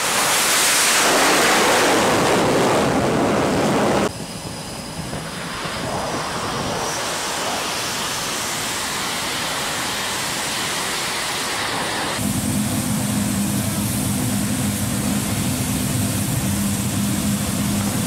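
Jet engine noise from an F/A-18F Super Hornet on a carrier flight deck: a loud hiss, then after a sudden drop about four seconds in, a quieter steady rumble. About twelve seconds in it gives way to a steady low engine hum with a couple of droning tones.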